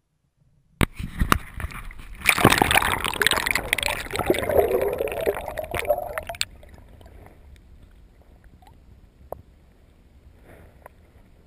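Water sloshing and gurgling against a GoPro's waterproof housing held just under the surface, starting suddenly about a second in with a few sharp knocks. About six seconds in it drops abruptly to a faint underwater hiss with scattered clicks.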